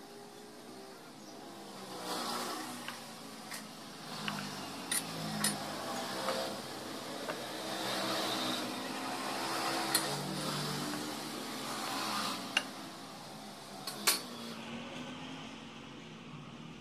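A few short, sharp knocks and taps as hardwood boards are handled, over the changing engine hum of a passing motor vehicle.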